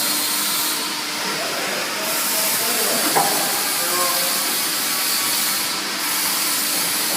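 Steady hissing machine noise from a hydraulic clothing-textile baling press at work.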